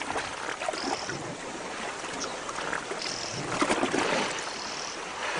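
River water splashing and churning as a hippopotamus moves through the shallows toward feeding crocodiles.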